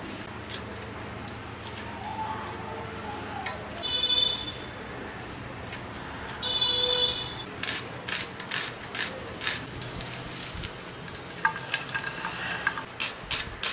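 Vegetables being sliced on a boti, a curved blade fixed upright in a wooden base: crisp cutting strokes about two a second through the second half. Before the cutting starts, two short, shrill, high-pitched tonal sounds stand out, one about four seconds in and one about seven seconds in.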